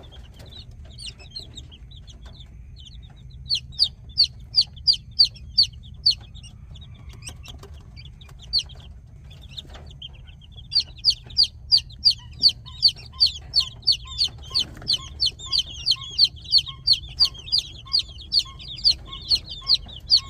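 Baby chicks peeping: short high-pitched falling peeps in runs, turning into a fast steady series of about three peeps a second in the second half, over a steady low hum.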